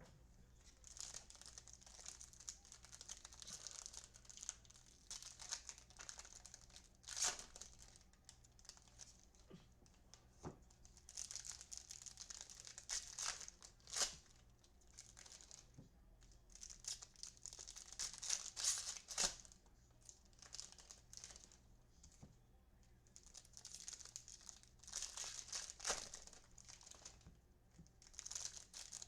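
Foil wrappers of baseball trading-card packs crinkling and tearing as packs are opened by hand. It comes in several bouts of rustling with quieter gaps between them, plus a few sharp snaps.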